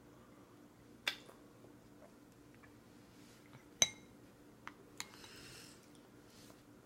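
A plastic baby spoon tapping and clinking against a plastic feeding bowl: a few sharp knocks, the loudest about four seconds in with a brief ring.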